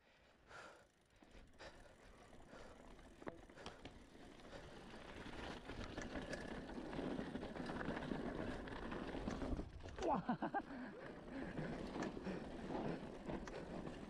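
Cannondale Trail SL4 mountain bike rolling down a rough dirt and rock trail: tyre noise and rattling that grow steadily louder from about four seconds in. A brief wavering pitched sound comes about ten seconds in.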